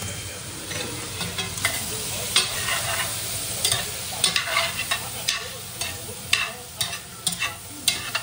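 A metal spoon scrapes and knocks against a cast iron Dutch oven as chopped sausage is stirred, with the sausage sizzling underneath. The knocks come irregularly, about two a second, starting about a second in.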